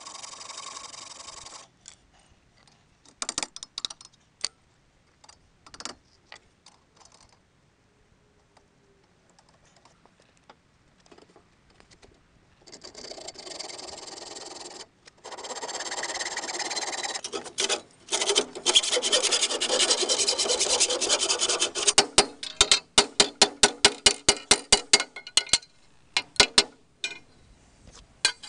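Hacksaw cutting through the rusty steel frame of a Citroën 2CV, played sped up, so the rasping strokes come fast. Long runs of rasping in the middle give way near the end to separate sharp strokes, several a second.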